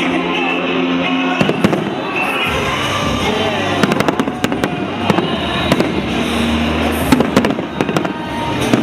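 Aerial fireworks shells bursting in rapid succession. The sharp bangs start a little over a second in and come thickest in the second half, over a pop song playing with the display.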